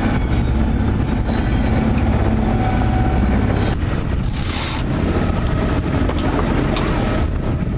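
Low motor drone aboard a boat on the water, with wind rumbling on the microphone. The sound breaks and changes about four seconds in.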